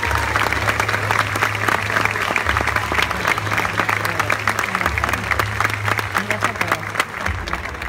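Audience applauding a dense, steady round of clapping that thins out near the end, over a low steady hum.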